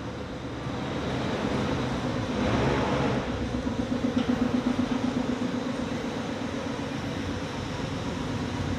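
A car engine idling steadily with a low exhaust hum, swelling a little about two seconds in.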